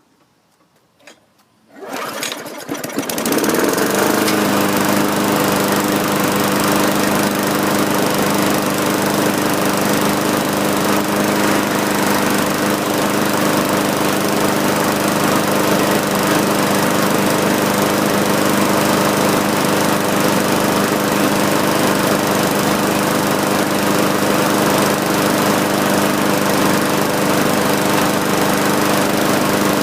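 Murray push mower's 5.0 hp Briggs & Stratton 500 series single-cylinder engine starting about two seconds in, after a couple of short clicks, and coming up to speed. It then runs steadily and loud, on its freshly rebuilt carburetor.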